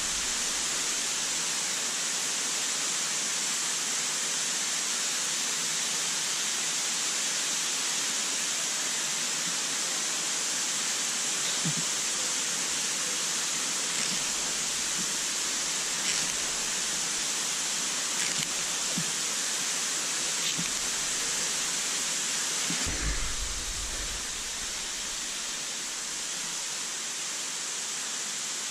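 Steady, even rushing hiss, with a few faint clicks scattered through it and a brief low rumble about 23 seconds in.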